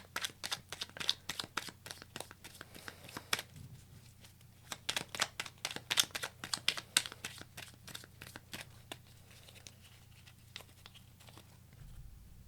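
Tarot cards being shuffled by hand: quick runs of crisp papery clicks and rustles in two spells, thinning to scattered clicks over the last few seconds.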